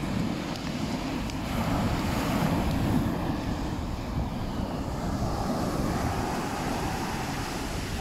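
Wind buffeting the microphone over the wash of sea surf breaking on the shore, a steady rumbling noise that swells slightly about two seconds in.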